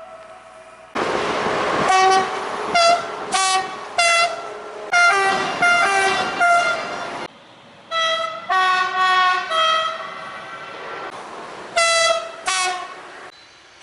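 Train horn playing a quick run of short toots on a few different pitches, like a tune, in several groups. A loud rush of noise comes just before the first toots, about a second in.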